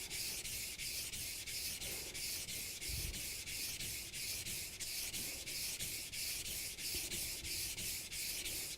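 Global kitchen knife blade being stroked back and forth on a wet whetstone, a steady rhythmic scraping of about three to four strokes a second. The stone's wet slurry is doing the sharpening, so the strokes are light and even.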